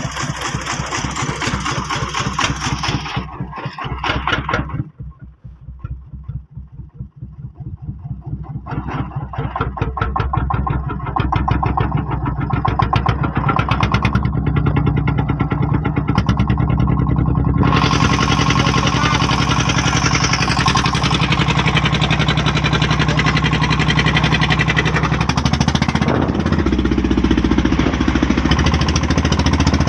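Engine of a homemade Khmer farm truck: it drops to a slow idle about four seconds in, its separate firing beats audible, then picks up again and runs loud and steady from about eleven seconds.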